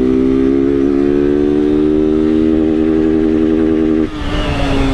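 Honda CG Fan 160's air-cooled single-cylinder engine, running without its air filter, held at high revs as a steady droning note that creeps slowly up in pitch. About four seconds in the throttle closes and the note drops away.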